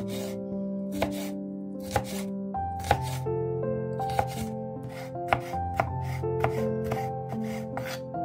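Chef's knife slicing and dicing red bell pepper on a wooden cutting board: irregular crisp knocks of the blade on the board, about two a second, over soft background music with held notes.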